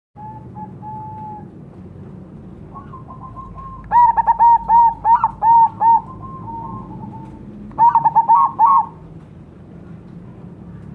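Crossbred zebra dove (perkutut) singing its cooing song, a run of quick rolling notes given in two bursts: a longer one about four seconds in and a shorter one near the end. Fainter drawn-out coos come before them.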